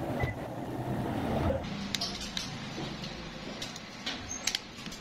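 Light clicks and taps of the smartphone's plastic frame and parts being handled and pried apart, a few sharp ticks in the second half, over a low steady rumble.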